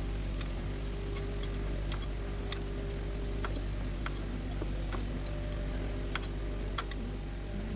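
A steady low mechanical hum with irregular, sharp light clicks scattered through it, like small metal tools being handled.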